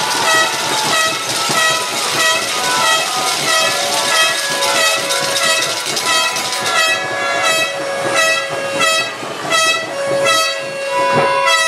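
Horns tooting over and over in a quick rhythm, about two short toots a second, with a long steady tone held underneath in the second half and a faster run of toots near the end.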